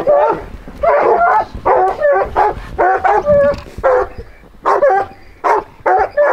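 Hunting hounds barking and yipping at a freshly killed mountain lion: a quick, continuous string of short barks, two or three a second, each bending in pitch.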